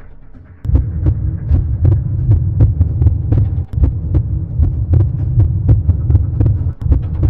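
A loud, low, throbbing tense beat, like a racing heartbeat, starts about a second in. It pulses steadily with sharp clicks about three times a second: a suspense sound effect for a cartoon's silent stare-down.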